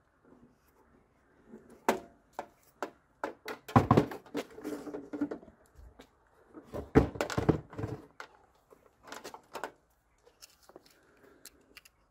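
A metal diesel air heater and its metal mounting plate being handled and set down on a bench. Scattered clicks and knocks, with heavier thumps about four and seven seconds in.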